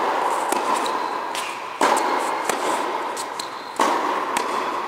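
Tennis balls struck with rackets on an indoor court. A sharp hit comes about every two seconds and rings on in the hall, with smaller knocks between.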